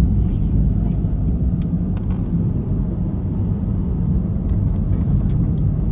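VW Transporter T5 van on the move: a steady low rumble of road and engine noise, with a few faint clicks.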